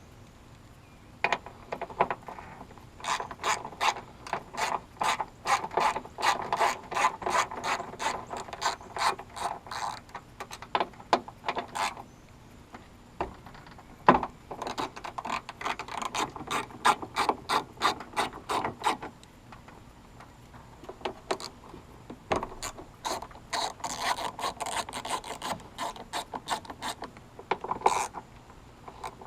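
Hand ratchet wrench clicking in three long runs of quick, even clicks as fasteners are turned, with a single sharper knock about halfway through.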